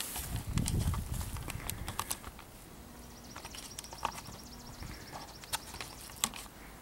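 Quiet, scattered clicks and light footsteps with hand-held camera handling noise, and a low rumble in the first second. A faint high steady tone is heard for a couple of seconds in the middle.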